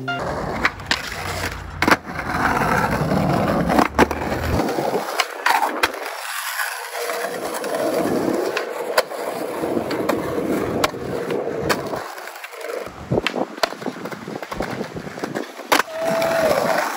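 Skateboard wheels rolling over concrete and stone paving, broken by repeated sharp clacks of the board: tail pops, landings and board hits on granite ledges.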